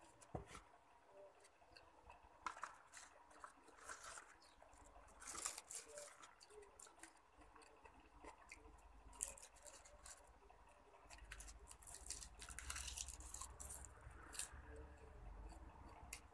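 Quiet close-up eating sounds: chewing and crunching, with scattered crisp crackles and small clicks as rice, stir-fried vegetables and a sheet of roasted seaweed are eaten. A low rumble joins about two-thirds of the way in.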